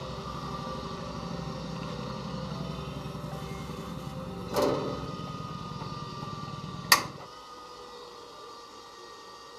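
A motor running steadily with a low hum and a faint high whine. There are two sharp knocks, about four and a half and seven seconds in, and the low hum stops just after the second one.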